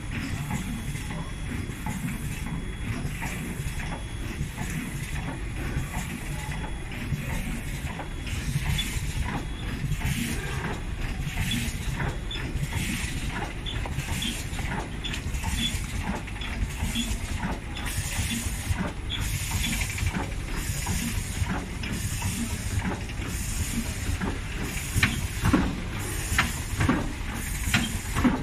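Two-lane K-cup filling and sealing machine running: a steady mechanical hum with air hisses and clicks repeating about once a second as the cups are indexed, filled and sealed, and a few louder clacks near the end.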